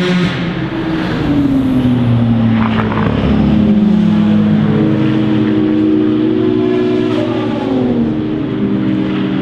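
Endurance race car engines running hard, several engine notes overlapping. Their pitch falls about a second in and again near the end and climbs in between as the cars brake, change gear and accelerate.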